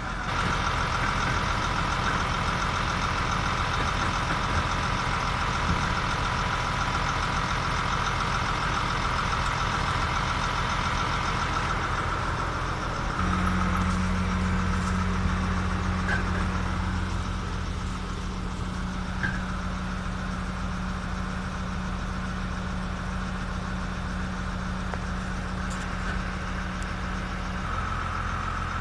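Crane engine and hydraulics running steadily as the crane lowers a portable office cabin into place: a steady high whine that gives way about halfway through to a deeper hum, with the whine coming back near the end.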